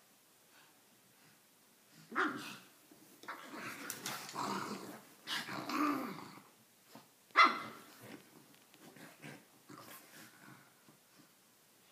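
Pugs growling and barking in play. After a quiet start comes a string of growls, then one sharp bark, the loudest sound, a little past halfway, followed by softer grumbles.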